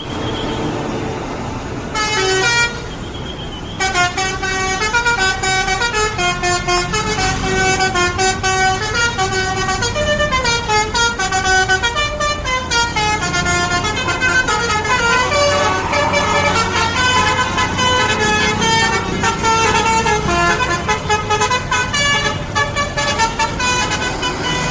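Basuri multi-tone telolet bus horn playing a long melody of rapid stepping notes. A short burst comes about two seconds in, then it plays without a break from about four seconds in.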